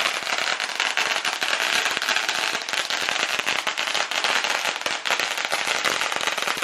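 A long string of firecrackers going off, a dense, unbroken rapid crackle of pops.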